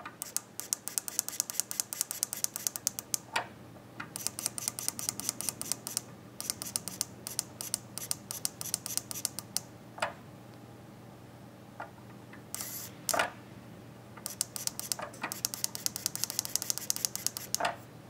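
Hobby servo motor stepping in small jerks as its pulse width is changed, a rapid train of ticks about ten a second in runs of a few seconds. Between the runs come single clicks of tactile push buttons, and a little before two-thirds through there is a short whir as the servo swings.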